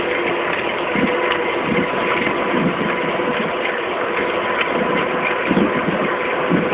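Pelikaan electric bicycle with a 36-volt motor under way: a steady, faint motor whine over tyre noise from the rough path and wind buffeting the microphone.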